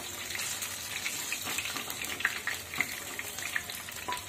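Pieces of catla fish frying in hot mustard oil in a kadai: a steady sizzle with frequent small crackling pops.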